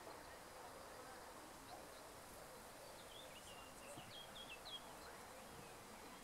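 Faint outdoor background noise, a steady distant hum, with a short run of faint high chirps from a small bird about three to five seconds in.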